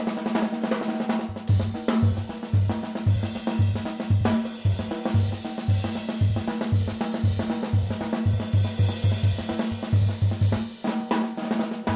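Jazz drum kit played solo: snare and cymbal work over low drum beats about twice a second.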